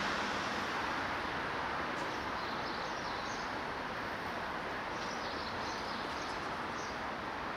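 Steady rushing outdoor background noise that eases slightly, with small birds chirping in short phrases from about two seconds in.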